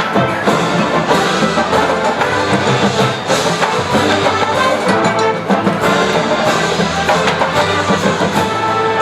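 Brass and percussion music playing loudly and continuously, with frequent sharp drum strokes.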